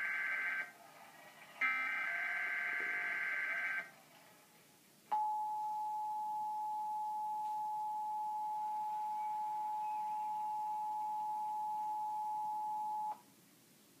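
Emergency Alert System test alert heard through a TV speaker: the buzzy, raspy digital SAME header bursts, the last one about two seconds long, then after a short gap the steady EAS attention tone held for about eight seconds before cutting off, announcing a test Tornado Watch.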